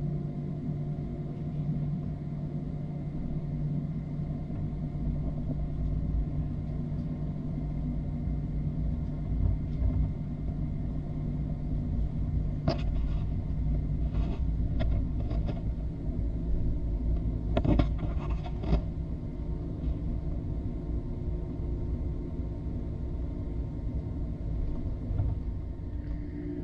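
Airbus A320-214 airliner running: a steady low rumble with a few faint steady tones over it, and a short run of clicks or knocks about halfway through.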